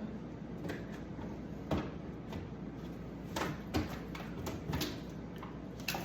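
Scattered light knocks and clicks of grocery items and packaging being handled and set down.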